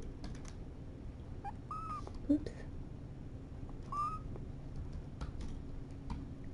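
Young kittens giving a few faint, short, high-pitched mews, about two seconds in and again with a rising one near four seconds, among light clicks and rustles.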